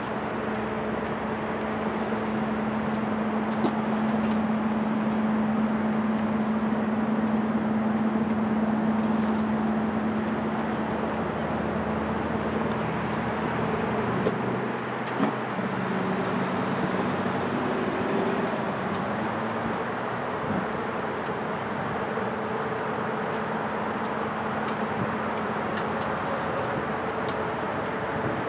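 Steady hum of a running vehicle engine and traffic noise. The engine's pitch drops a little about halfway through.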